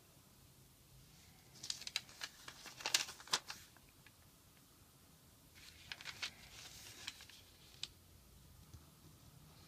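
Sheet of origami paper rustling and crinkling as it is handled, opened out and folded, in two spells of quick crackles, one about two seconds in and one about six seconds in.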